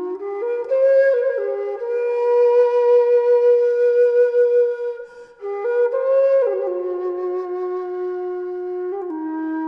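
Background music: a flute melody in slow, long-held notes, with a brief break about five seconds in.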